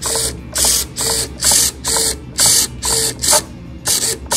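Two ganged RC servos driving a shared carbon linkage arm back and forth, their motors and gear trains buzzing in short bursts about twice a second.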